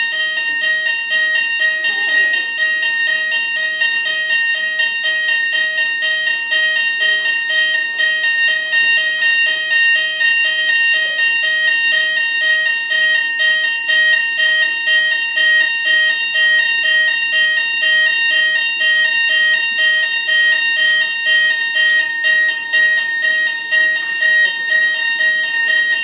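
Fire alarm sounder going off: a loud, continuous high-pitched tone, with a lower tone pulsing rapidly beneath it.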